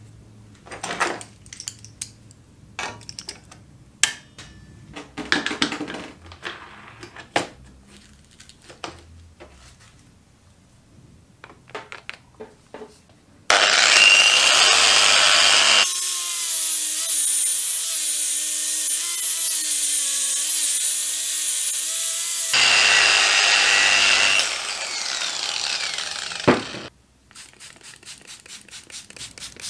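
Clinks and knocks of metal and wood as the cleaver is clamped down, then a power sander with an abrasive disc grinding rust off the steel cleaver blade. The sanding starts suddenly about halfway through, runs steadily with a faint motor whine for about ten seconds, drops lower and stops with a sharp click, followed by a quick run of ticks.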